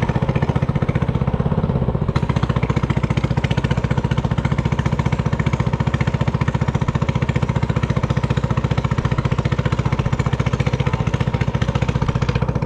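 An engine running steadily at an even speed, with a fast, regular pulse.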